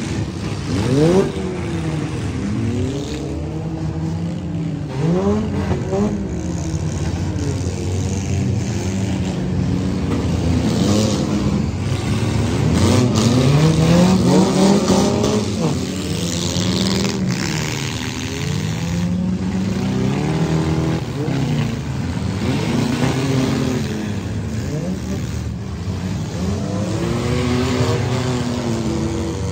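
Several compact demolition-derby cars' engines revving up and down together as they drive and spin in the mud, with scattered sharp crashes of cars hitting each other, the loudest about a second in.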